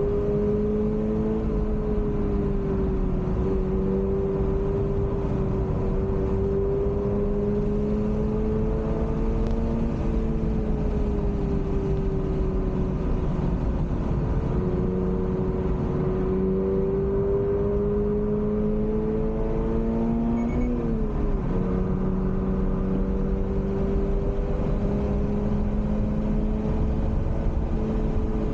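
Toyota GR86's 2.4-litre flat-four engine pulling hard on a race track, heard from inside the cabin, its pitch rising and falling gently through the lap, with a quick dip about three-quarters of the way through. Steady road and tyre rumble runs underneath.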